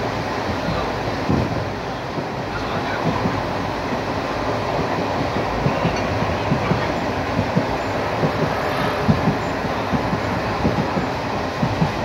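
Passenger train running along the track, heard from inside a coach through an open barred window: a steady rumble of wheels and rushing noise, with short knocks from the wheels that come more often in the second half.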